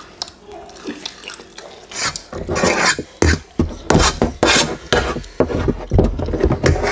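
Close-miked eating sounds: crispy fried chicken torn apart by hand and a fork scraping through noodles on a metal tray, a quick run of crunching and scraping that starts about two seconds in after a quieter opening.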